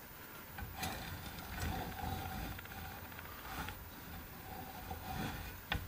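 Thin 25-gauge sheet steel being slid and adjusted between the steel jaws of a vise-mounted sheet metal bender: faint scraping and handling with a few light clicks, and a sharper click near the end.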